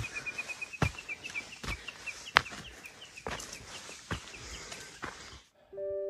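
Footsteps on a dirt mountain trail, about one every 0.8 s, with a bird's rapid, high chirping notes repeating in the background. About five and a half seconds in, this cuts off and soft piano music begins.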